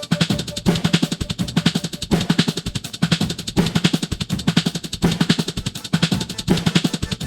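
Background music driven by a fast, steady drum beat, its pattern repeating about every second and a half.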